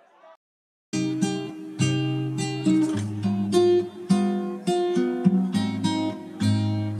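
Background music played on a plucked acoustic guitar, starting about a second in after a short silence.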